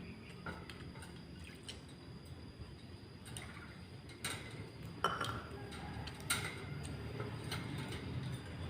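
Scattered light clinks and taps of small hard objects, with a sharper click about five seconds in, over a low steady hum.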